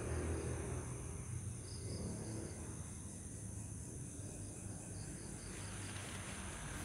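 Insects chirping in a steady, pulsing chorus over a low rumble.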